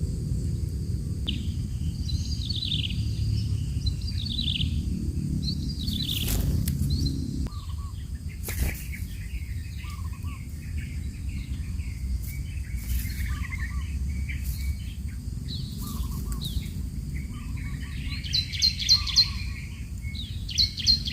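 Small birds chirping and calling in quick short notes and trills, over a low rumble of wind on the microphone that eases off about seven seconds in. A couple of sharp clicks are heard in the middle.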